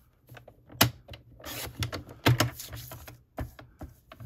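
Paper trimmer cutting a thin strip off a sheet of paper: the blade carriage clicks and scrapes as it is pushed along its track, with several sharp clicks.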